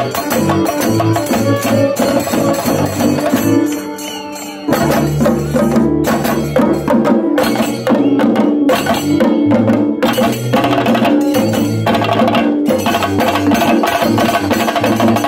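Chenda drums beaten with sticks in a fast, dense rhythm together with an electric violin playing a melody. The music softens around four seconds in, then comes back fuller and louder.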